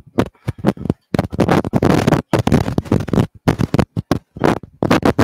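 Knife chopping romaine lettuce on a cutting board: quick, irregular knocks, with a dense noisy stretch of rapid chopping about a second in that lasts some two seconds.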